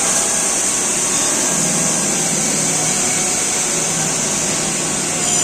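Steady whirring hiss of running machinery with a low, even hum underneath, unchanging throughout: the powered-up Takang CNC lathe and the workshop around it.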